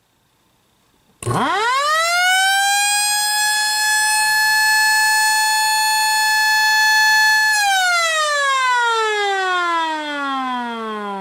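LK JDW105 air raid siren starting about a second in. Its pitch rises quickly to a steady high wail, holds for about six seconds, then falls in a long slide as it winds down.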